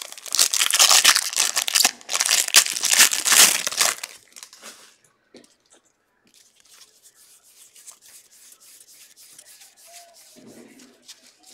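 Foil trading-card pack torn open by hand, its wrapper crinkling loudly for about four seconds, followed by the quieter slide and flick of the cards being sorted through.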